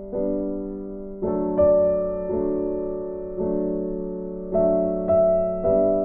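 Slow, gentle background music on a keyboard: soft chords struck every second or so and left to fade.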